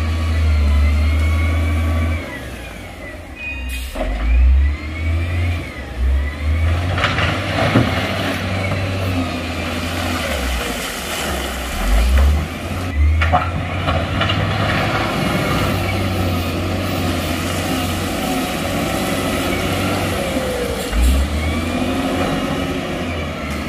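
Heavy diesel construction machinery at work: a deep engine rumble that revs up and down, with a few sharp knocks, clanks of metal or stone.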